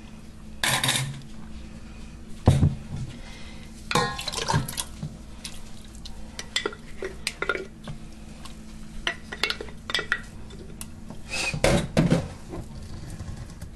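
A glass canning jar and spoons clinking, knocking and scraping against a stainless steel pot as thick sauce is scraped out of the jar, in irregular clinks and knocks over a low steady hum. A louder clatter of glass and metal comes near the end.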